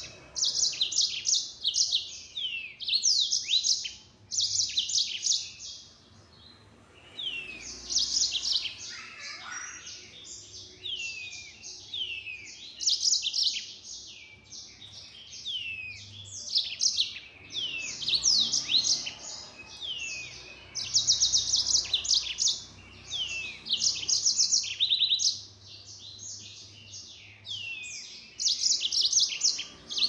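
Yellow-fronted canary (Mozambique canary) singing in fast, full song: phrase after phrase of rapid trills and quick downward-sliding notes, with short pauses between them and a longer pause about five seconds in.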